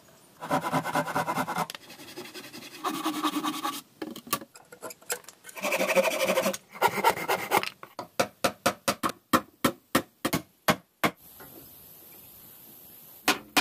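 A hand saw cutting through a wooden plank in several bursts of quick rasping strokes, followed by a run of sharp, evenly spaced knocks, about three a second.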